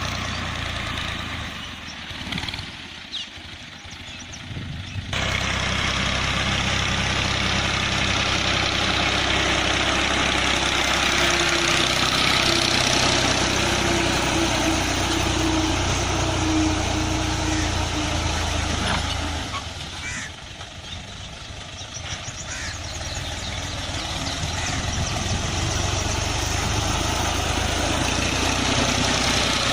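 Tractor-driven farm machinery running in a field, a steady engine note with machine noise over it. The sound jumps abruptly louder about five seconds in, drops about twenty seconds in, then builds back up.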